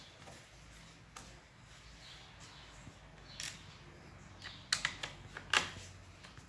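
Scattered sharp clicks and taps from laptop parts being handled, with several loud ones in quick succession in the second half.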